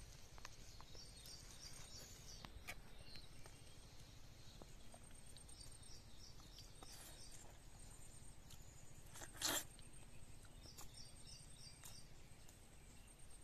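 Quiet outdoor ambience with a bird calling three times, each call a short quick run of high notes. A brief louder noise stands out about nine and a half seconds in.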